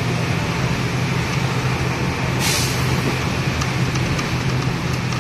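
Road vehicle engine running steadily with road noise, heard from inside the moving vehicle. A brief sharp hiss cuts in about two and a half seconds in.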